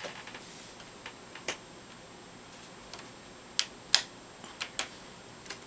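A few scattered sharp clicks and taps as a magnetic screwdriver and small screw work against the screen mounting bracket at the hinge of an HP G7 laptop, while a screen mounting screw is being fitted. The loudest click comes about four seconds in.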